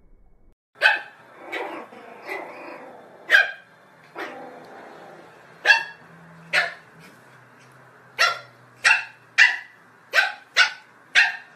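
Small dog barking in sharp, short, high-pitched barks. They come a few at a time, well spaced, at first, then in a quick run of about two a second over the last few seconds.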